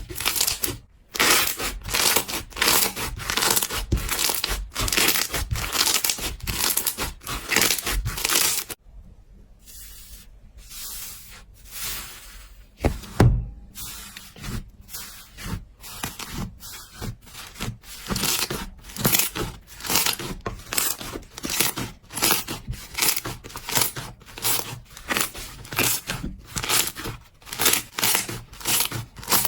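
Slime being squeezed and worked by hand, giving a rapid run of sticky crackling pops, about two or three a second, with a quieter stretch about nine seconds in and one low thump at about thirteen seconds.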